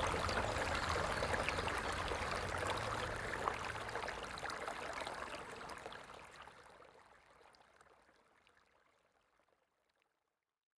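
Flowing river water: a steady wash of running water with small trickling splashes, fading out gradually over the last few seconds to silence.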